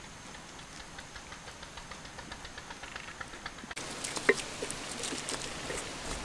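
Wet duck feathers being plucked by hand: irregular crackling and tearing clicks that start suddenly about four seconds in. Before that, only a faint rapid ticking.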